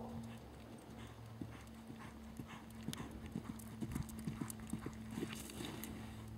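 Hoofbeats of an American Quarter Horse loping on soft arena dirt, a quick run of dull knocks that grows louder. Near the end there is a scraping rush as the horse slides to a stop in the dirt.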